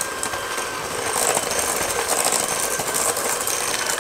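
Electric hand mixer running steadily with a faint motor whine, its wire beaters rattling in a stainless steel bowl as they cream butter, sugars and eggs. It gets a little louder about a second in.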